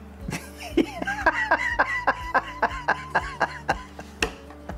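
Laughter: a run of quick, high-pitched laughing pulses, about five a second, starting about a second in and stopping shortly before the end.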